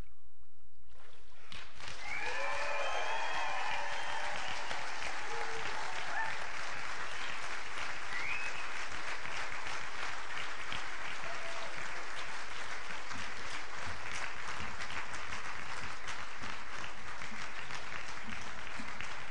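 Church congregation applauding, starting about a second in and going on steadily, with a few cheering voices about two seconds in.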